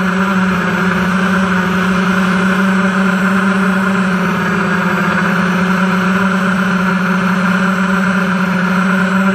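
Small FPV quadcopter's electric motors and propellers buzzing steadily, a constant-pitched hum heard close up from the GoPro mounted on the drone itself.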